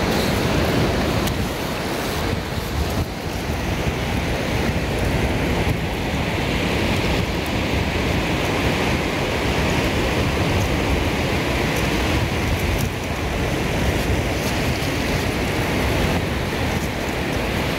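Steady wind buffeting the microphone, with surf washing on the shore underneath.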